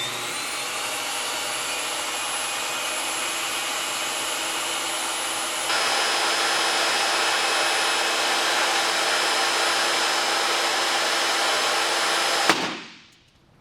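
SawStop compact table saw running at speed with a steady whine, growing louder and brighter about six seconds in. Near the end there is a sharp crack and the saw sound dies away within about a second, as the brake cartridge fires on contact with the hot dog and stops the blade.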